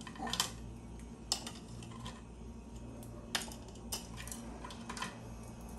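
Crisp fried bacon strips snapped by hand and dropped into the plastic bowl of a small electric food processor: scattered light clicks and crackles, about one a second, over a low steady hum.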